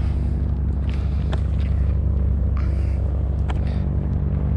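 Aircraft engine running steadily, a low, even drone.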